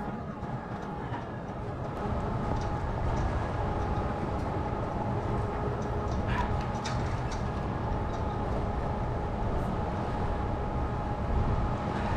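Steady low mechanical rumble with a faint steady hum through it, and a few light clicks about halfway through.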